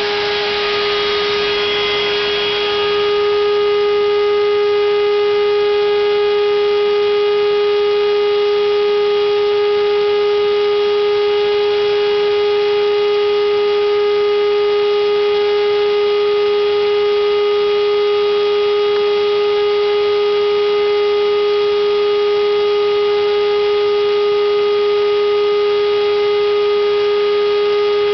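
Router spindle motor of a homemade CNC router running at a steady speed, a loud, even, high-pitched whine. A noisier rushing sound on top of it fades away about three seconds in.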